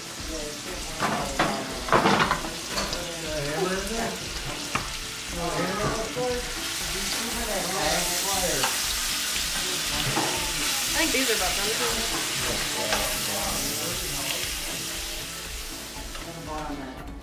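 Glazed salmon fillets sizzling in a hot metal baking pan just out of the oven. There are a few sharp metal clanks from the oven door and pan about one to two seconds in.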